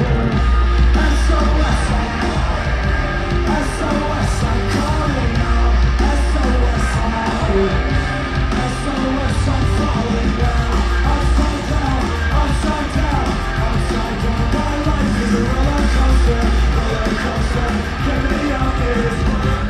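Live rock band playing loud through a concert PA, with heavy pulsing bass, drums and a singer shouting and singing, recorded from within the audience.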